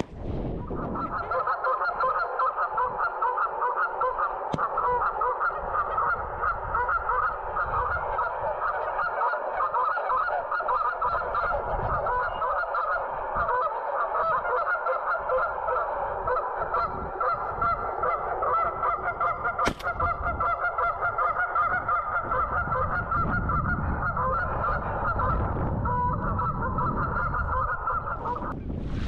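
A flock of geese honking: many calls overlapping in a continuous clamour that starts about a second in and stops abruptly near the end.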